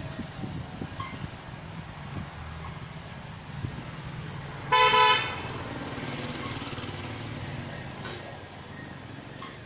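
A vehicle horn gives one short honk about five seconds in, over a steady high hiss.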